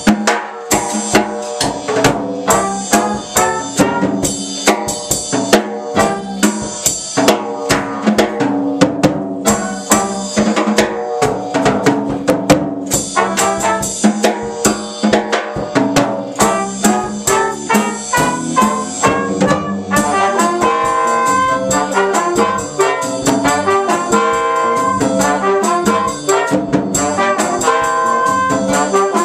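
Small Latin jazz band playing a salsa tune live: trumpet and trombone lead over alto saxophone, electric bass and a drum kit keeping a steady beat.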